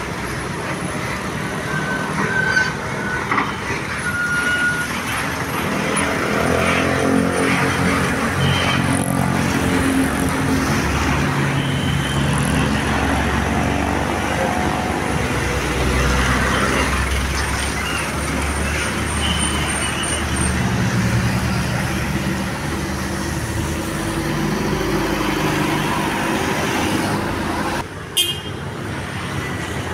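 Large diesel buses pulling out and passing one after another, their engines swelling as each goes by, over steady road traffic, with a few brief horn toots.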